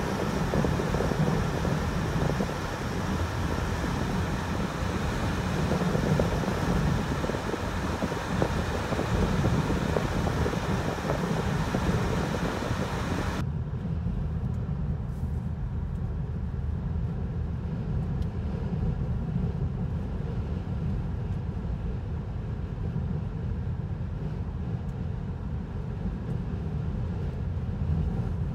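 Steady low rumble of a vehicle in motion. About halfway through the higher hiss cuts out suddenly, leaving only the low rumble.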